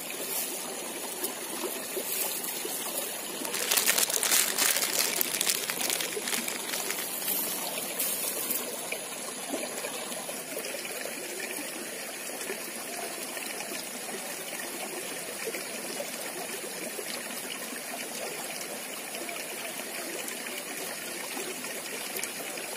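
Shallow stream trickling steadily over stones. A louder stretch of rustling and clicks comes about four to nine seconds in.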